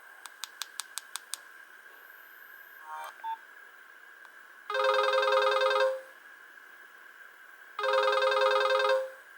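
Nokia 1110i phone: six quick clicks, a short beep, then a ringtone sounding twice as a trilling, ring-like burst about a second long.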